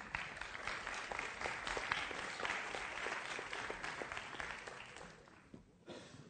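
An audience applauding, the clapping dying away about five seconds in.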